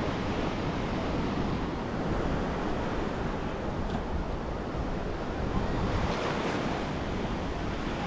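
Small waves breaking and washing up on a sandy beach, a steady rushing surf, with wind blowing across the microphone.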